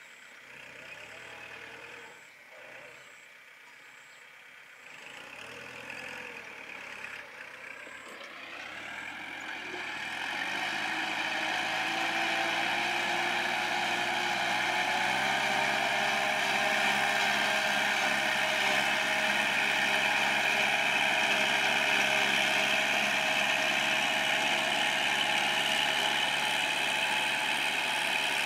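Kubota L4708 tractor's 47-horsepower diesel engine working a field under load, pulling a plough. Faint at first, about nine seconds in it rises in pitch and grows louder, then runs steadily.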